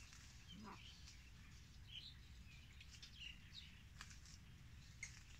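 Near silence with a few faint, short bird chirps scattered through it over a low, steady background noise.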